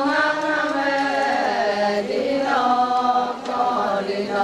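Adi Ponung dance song sung by a group of women in unison, with long held chanted notes. The phrase breaks about two seconds in and a new one starts with sliding pitch.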